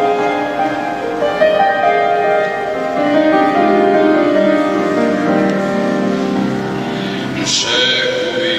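Keyboard accompaniment playing held chords and a melodic line in a pause between sung phrases of an Albanian patriotic song, with a short noisy rush near the end just before the voice comes back in.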